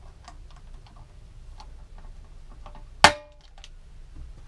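Glue-on plastic pulling tab of a dent puller kit snapping off a motorbike fuel tank: one sharp snap about three seconds in, ringing briefly, after faint small clicks of the puller being worked. The hot glue has not bonded, so the dent is not pulled out.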